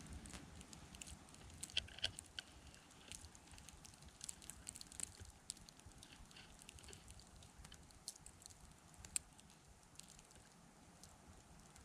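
Faint, scattered ticks and pattering over a low hiss, typical of wind-driven snow striking close to the microphone.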